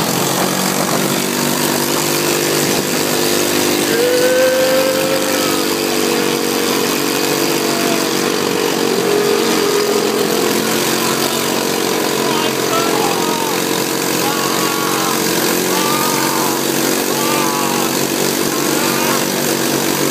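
ATV engine running at a steady pitch during a ride, with faint voices in the background.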